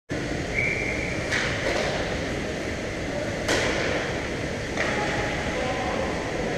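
Ice hockey rink game sound: a steady wash of skating noise with several sharp knocks of sticks and puck, and a short steady tone about half a second in.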